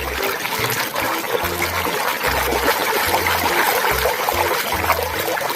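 Water running and trickling steadily as a muddy toy vehicle is washed.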